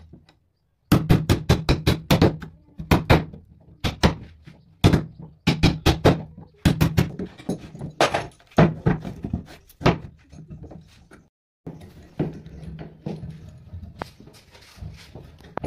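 Steel hammer striking a chisel in quick runs of blows, about four or five a second, chopping mortises into a wooden block. The blows thin out after about ten seconds and give way to softer scraping and light knocks.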